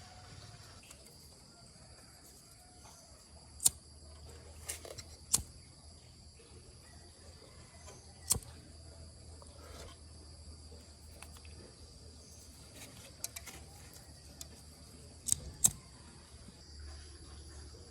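Sharp, isolated clicks or taps, about six in all, two of them in quick succession near the end, over a faint steady hum and high whine.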